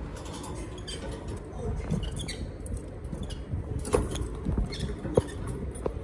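Rosy-faced lovebirds moving about on a hanging coconut-shell nest and the cage: scattered light taps and scratches of claws and beaks, with a few faint, short high squeaks.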